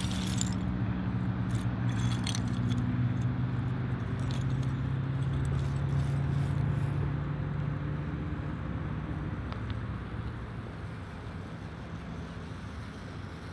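Traxxas TRX-4M RC crawler's small electric motor and geared drivetrain whining as it crawls over loose wood shingles, with light clicks and clatter from the pieces in the first few seconds. The whine fades as the truck moves off in the last few seconds.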